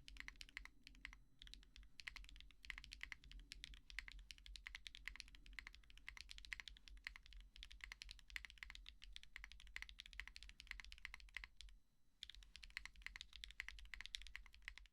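Mechanical keyboard fitted with Gateron Type R tactile switches being typed on quickly and continuously, key after key clacking. The typing pauses briefly about twelve seconds in, then resumes and stops abruptly near the end.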